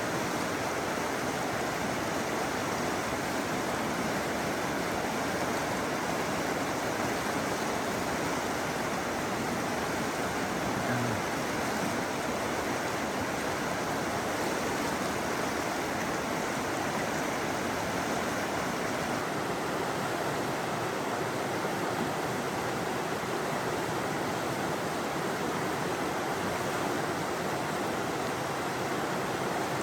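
Salmon River flowing: a steady, even rush of running water.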